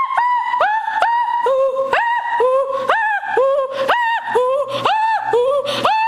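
A young person's voice singing wordlessly in a yodel-like pattern, leaping up from a low note to one about an octave higher, over and over, about twice a second.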